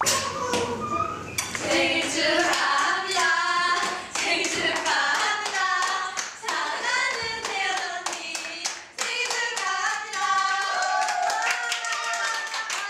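Several women singing together unaccompanied, with hand clapping scattered through the singing.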